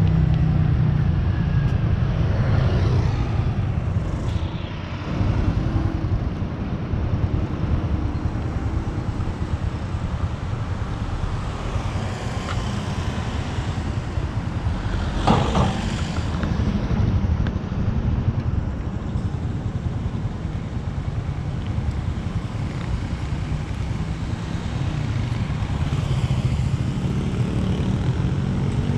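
Motor scooter engine idling steadily close by, with traffic passing on the street. A short sharp noise stands out about halfway through.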